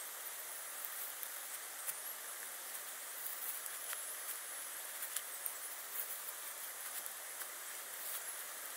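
Light rustling and scattered small ticks as willow rods are pushed into the ground among grass and leaf litter, over a steady faint hiss.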